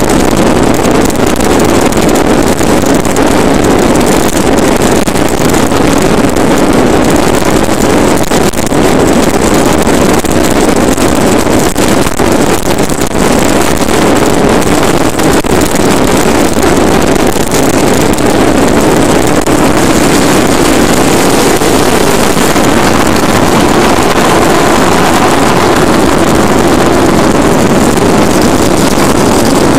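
Bobby-Car ride-on toy's wheels rolling fast down an asphalt road: a loud, steady rumble. Wind buffets the microphone.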